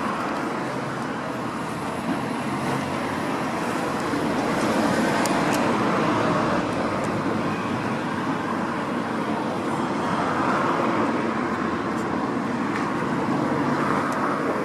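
Steady road traffic noise, with vehicles passing that swell louder about four seconds in and again about ten seconds in.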